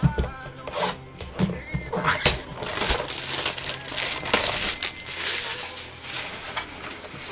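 A shrink-wrapped cardboard box of trading cards being handled: several knocks and bumps as it is picked up and turned over, then a few seconds of crinkling plastic wrap.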